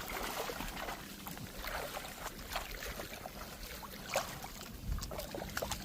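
Faint water lapping and splashing, with scattered light clicks and splashes and one slightly louder splash a little past four seconds in.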